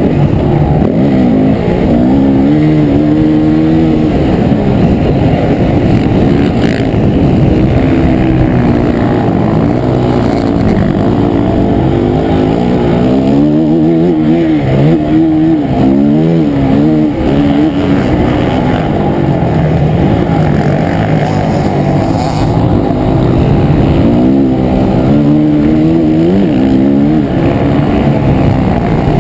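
Dirt bike engine heard from on board, revving up and falling back over and over as the rider accelerates, shifts and backs off around a motocross track.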